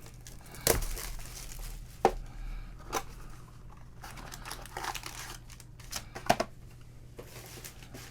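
Trading-card pack wrappers being crinkled and torn open, with a few sharp clicks as the packs and cards are handled.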